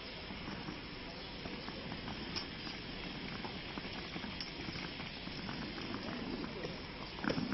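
Street ambience: a steady background noise with faint, indistinct voices and scattered small clicks, and a louder knock near the end.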